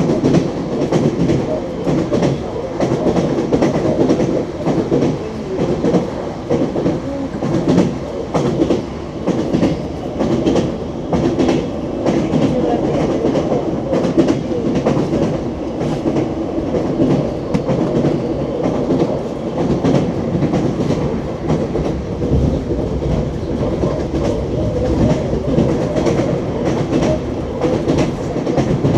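Wheels of an ES2G Lastochka electric train clattering over rail joints as it runs along the track, many knocks over a steady rumble.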